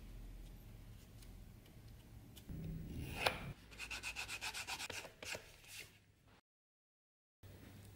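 Hand rubbing quickly back and forth over a strip of natural leather, about six strokes a second, after a single sharp tap a little past the midpoint. The sound cuts out suddenly for about a second near the end.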